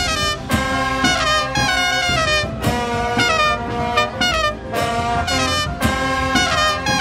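Background music: a brass-led tune in falling phrases over regular drum hits.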